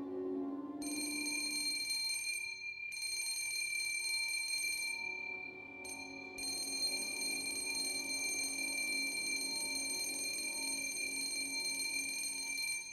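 Electric bell ringing in three long rings, about two seconds, two seconds, then about six seconds, over soft orchestral music.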